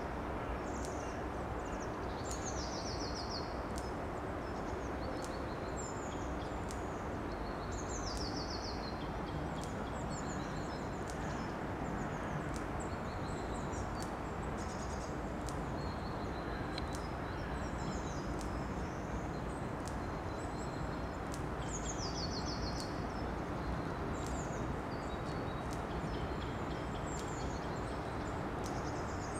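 Small birds singing short, high trills and chirps, one every second or two, over a steady low background rumble.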